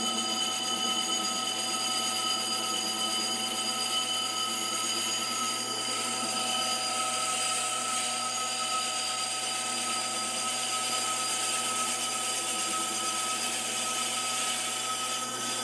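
Small lathe-mill-drill turning a cast iron brake rotor with a carbide insert on a light cut: a steady metal-cutting noise with high ringing tones held throughout, over the machine's running hum.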